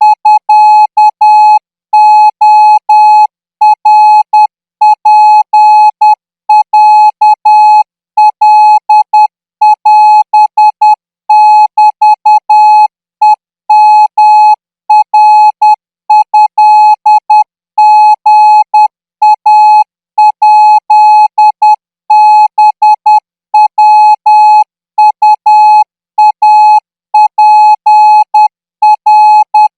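Morse code training signal in Thai radio code, sent at 14 words per minute: one steady beep tone keyed on and off in short dots and longer dashes, with short gaps between characters and longer gaps between words.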